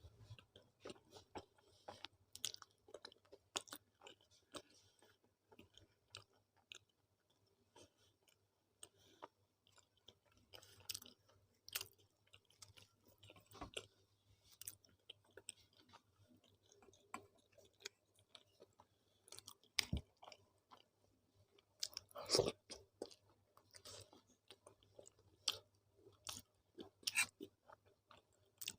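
A person chewing and eating a meal of tawa roti with dal and aloo-methi sabzi, close to the microphone: faint, irregular mouth clicks, smacks and soft crunches, with a couple of louder ones about two-thirds of the way through.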